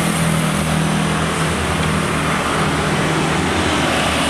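Road traffic going by, with the steady low hum of a motor vehicle engine close by.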